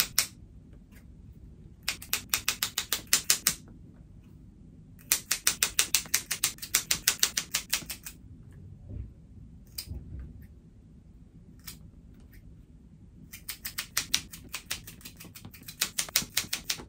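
Scissors snipping vine runners into short cuttings: runs of quick, sharp snips, several a second, three runs with pauses between.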